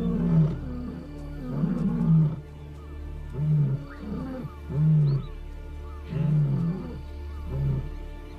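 Lions roaring: a series of short, deep roars repeating roughly once a second, a territorial call warning neighbouring prides that the territory is held.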